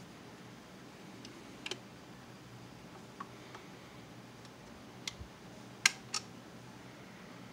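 Dual 1257 belt-drive turntable running with a record on the platter: a faint steady hum with a handful of light, irregular clicks, the loudest a quick double click about six seconds in.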